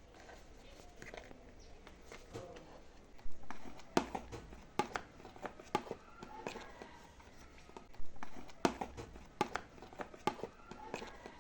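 Irregular clicks and knocks, about a dozen, starting some three seconds in and coming every half second to a second.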